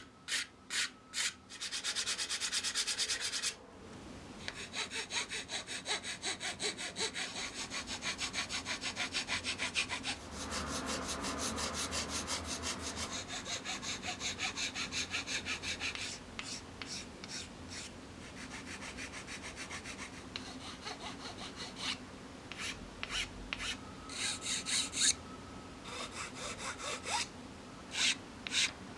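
A hand tool worked back and forth on wood in quick, even strokes, about three or four a second, in several runs with short pauses between them.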